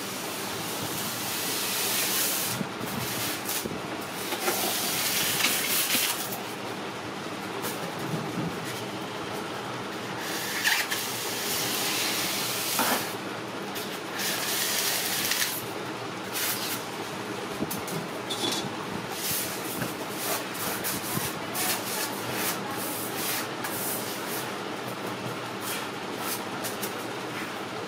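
A long cake knife sawing through baked sponge cake and scraping crumbs across a metal worktable: rough hissing strokes of a second or two in the first half, then many short quick scrapes, over a steady background noise.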